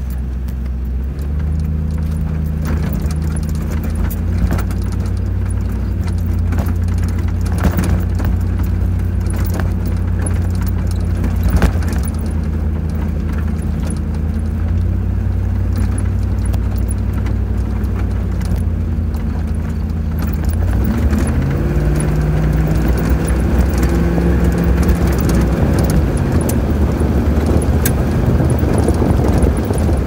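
1997 Land Rover Defender 90's V8 engine running as the truck drives over a rough dirt construction road, heard from inside the cabin, with scattered knocks and rattles. About two-thirds of the way through, the engine note climbs as it speeds up.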